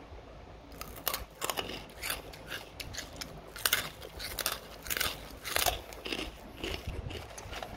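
Chewing a crispy dried purple sweet potato chip: a run of crisp crunches, about two or three a second, starting about a second in.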